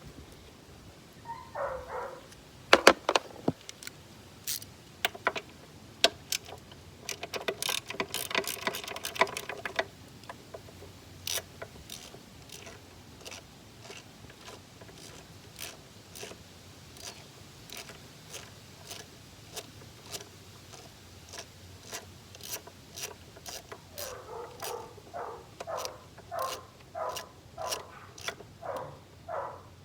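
Socket ratchet wrench clicking as a nut is turned: a quick run of rapid clicks, then steady single clicks about two a second, some with a slight metallic ring near the end.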